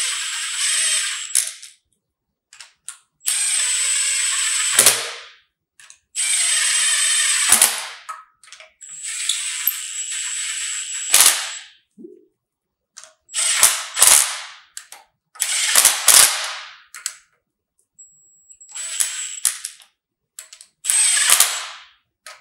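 Small cordless impact running head bolts down on an LQ4 6.0-litre V8's cylinder head in about eight short runs of one to two seconds each. Each run has a high whine and ends in a sharp click. The bolts are only being snugged down, not torqued.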